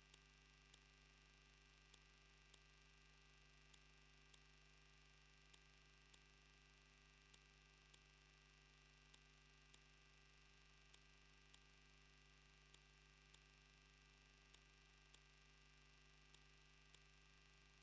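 Near silence: a faint, steady electrical hum with faint sharp ticks about once or twice a second, from a wildlife camera's faulty audio feed rather than anything in the scene.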